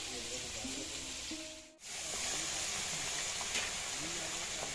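Hot oil sizzling steadily in a wok as food fries, with faint voices underneath. The sound cuts out briefly about two seconds in, then the sizzle comes back slightly louder, now from hilsa fish pieces frying.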